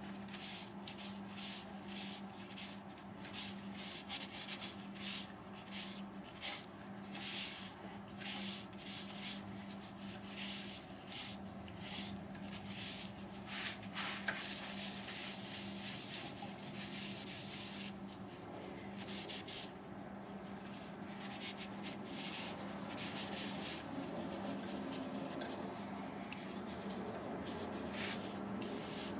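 A rag wiping finish onto a turned wooden bowl: a run of irregular rubbing strokes over a steady low hum.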